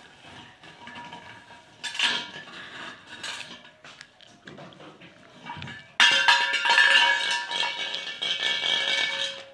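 A steel bowl clattering and ringing as a baby monkey shoves it about on a rope cot, with its thin metal chain clinking. The clatter is sporadic at first, then turns louder and almost continuous with a lingering metallic ring from about six seconds in.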